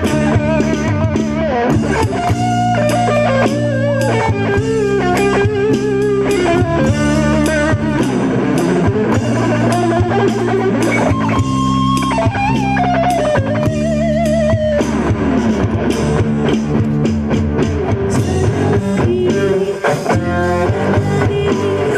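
Live band playing an instrumental passage: an electric lead guitar carries a melody with wavering, vibrato-laden held notes over bass and a drum kit.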